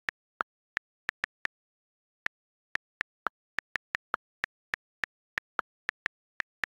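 iPhone on-screen keyboard click sounds as a comment is typed, about two dozen short, sharp ticks at an uneven typing pace, some with a slightly lower tone than the rest, with silence between them.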